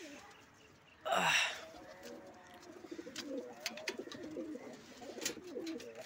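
Domestic pigeons cooing, low wavering calls that run through the second half. A loud rushing burst about a second in stands out as the loudest sound, with scattered sharp clicks.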